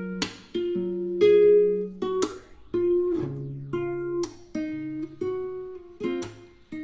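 Background music: plucked acoustic guitar chords, each struck and left to ring, in a slow, steady pattern.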